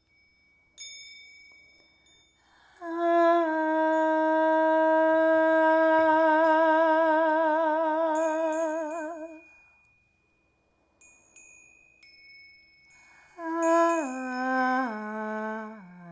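A woman's wordless voice humming tones with vibrato: one long held note, then a phrase of notes stepping downward near the end. A few small chimes are struck and ring in the pauses.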